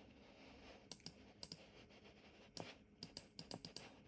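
Faint, scattered clicks of a computer mouse button as strokes are drawn, a few in the first half and a quicker run of them in the second half.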